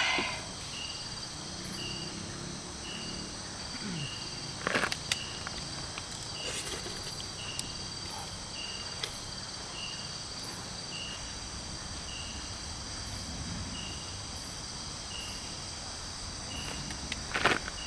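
Insects, crickets or cicadas, singing steadily in a high-pitched chorus, with one short chirp repeating at an even pace. A couple of brief clicks or knocks cut in, one about five seconds in and a louder one near the end.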